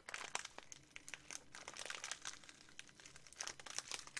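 Snack wrapper crinkling in irregular crackles as hands handle it and open it.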